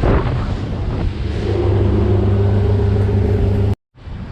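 Wind buffeting the microphone. About a second in, a boat engine's steady low hum joins it, then cuts off suddenly near the end.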